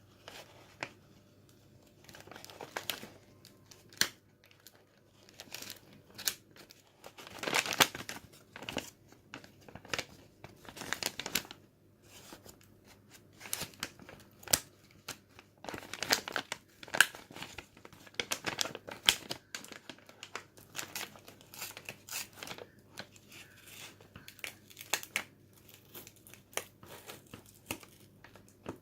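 Packaging being crinkled and torn open by hand: irregular crackling and rustling, with denser bursts of tearing twice along the way.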